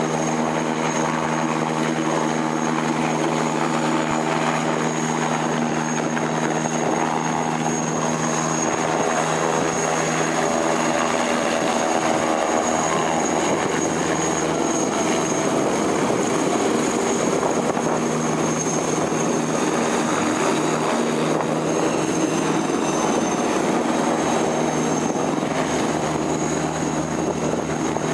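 Eurocopter Tiger attack helicopter flying low, its twin MTR390 turboshaft engines and four-blade rotor running loud and steady, with a constant high-pitched whine over the rotor noise.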